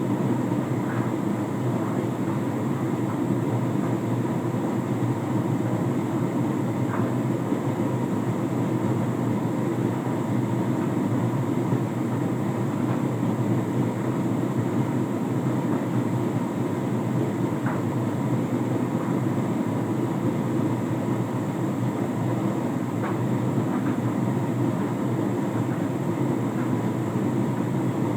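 Hotpoint Ultima S-Line tumble dryer running with a load of jeans: a steady hum and rumble of the motor, fan and turning drum, with a few faint ticks every several seconds.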